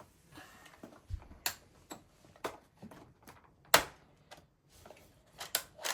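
Irregular clicks and knocks of hard plastic as a toy lock box is handled and small items are put inside, with the sharpest click a little past the middle.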